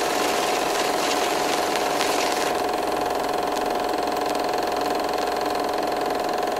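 Film projector sound effect: a steady mechanical whir with a constant hum tone and scattered light clicks, laid under an old-film-style title card.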